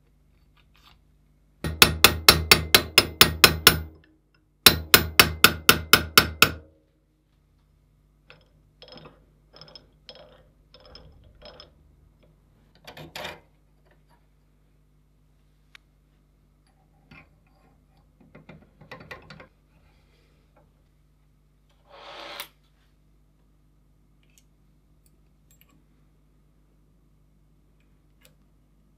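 Two runs of rapid, evenly spaced hammer taps, about five a second and each lasting about two seconds, followed by scattered lighter taps and clicks.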